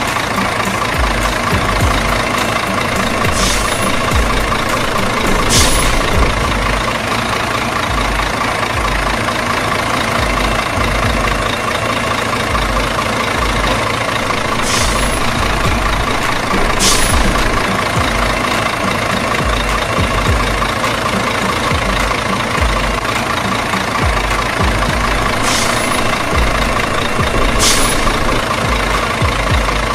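Heavy truck diesel engine idling steadily with a low knocking rumble. Short high hisses come in pairs about two seconds apart, three times, repeating at even spacing like a loop.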